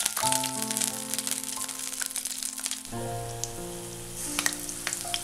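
Background music of held chords that change twice, over hot sunflower oil sizzling and crackling as balls of onion-vada batter are dropped in to deep-fry.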